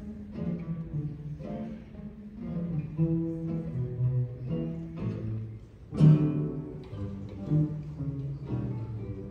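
Classical guitar ensemble playing, plucked chords and melody over a low bass line, with a sharp, loud accented chord about six seconds in.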